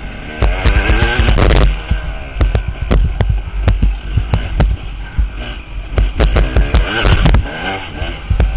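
Dirt bike engine revving up and down as the rider accelerates through the turns, with heavy wind buffeting on the on-board microphone and knocks from the rough track.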